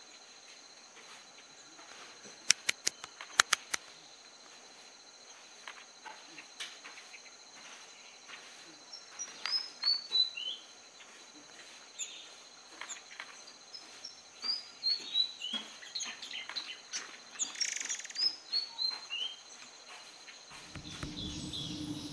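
Malaysian pied fantail singing: several phrases of high, squeaky notes, each run stepping downward in pitch, over a steady high insect drone. A quick run of sharp, loud clicks comes about three seconds in, and a low hum comes in near the end.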